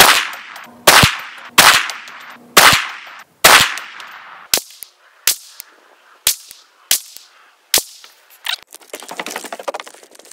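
CMMG Banshee 10mm short-barreled carbine firing a string of about ten single shots in slow aimed fire, roughly one a second, the first few loudest.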